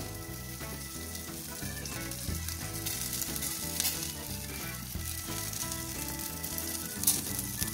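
Whole chicken sizzling and spitting in a perforated grill pan on a hot gas grill: a steady hiss with a few sharp pops. Background music plays underneath.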